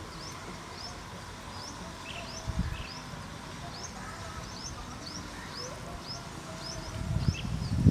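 A small bird chirping over and over: short high notes that hook upward, about two a second. Under it is a low rumble that grows louder near the end.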